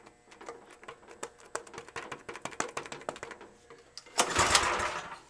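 A run of quick, irregular clicks, then a short loud burst of hissing noise about four seconds in: an attempt to start the Massey-Harris tractor that almost catches.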